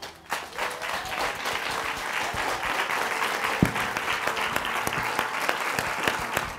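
Audience applauding, a dense steady clatter of many hands clapping, with one louder thump about halfway through.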